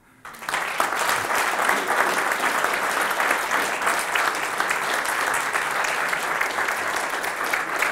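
Audience applauding: the clapping breaks out a moment in, builds within about a second, and holds steady and dense.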